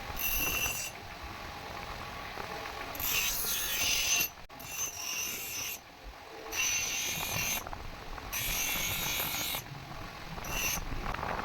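Metal being scraped in repeated rasping strokes, each about a second long, with short pauses between them.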